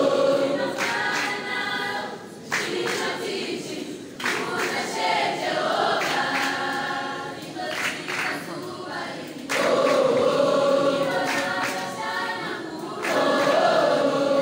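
School choir of many young voices singing a cappella, in sustained phrases with a fresh loud entry every few seconds.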